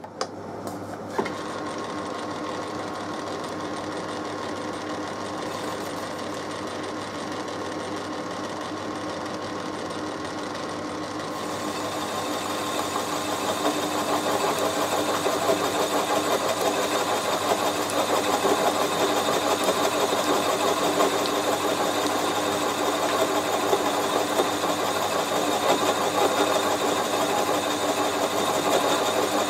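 Myford lathe running, turning a boring bar inside a mild steel cylinder block. About a third of the way in the cutter starts cutting on a 40-thou pass, and the sound grows louder and fuller, with a steady hiss of cutting over the machine's hum.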